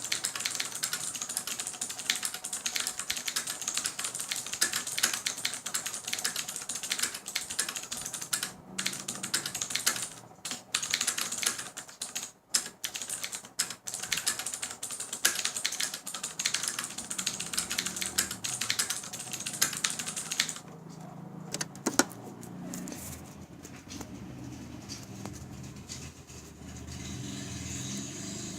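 Fast, continuous typing on a Ducky One mechanical keyboard with clicky Cherry MX Blue switches, with a few brief pauses. The typing stops about twenty seconds in, leaving a quieter low background sound with one sharp click.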